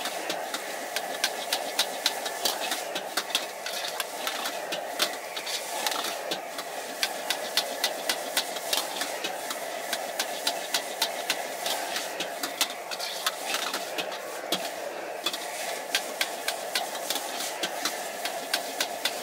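Metal ladle and spatula clanking and scraping against a wok as rice noodles are stir-fried, in rapid, irregular strikes several a second. Under it runs a steady rushing of the gas burner and the sizzle of the noodles in the hot wok.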